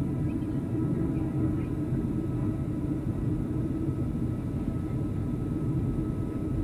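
Cabin noise of a Boeing 737 airliner on descent, heard from a window seat over the wing: a steady rumble of jet engines and airflow, with faint steady tones above it.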